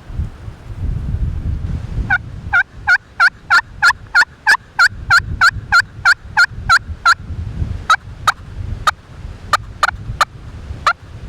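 Turkey yelping: a run of about fifteen sharp, evenly spaced yelps, about three a second, then a handful of slower, scattered yelps near the end, over gusty wind noise on the microphone.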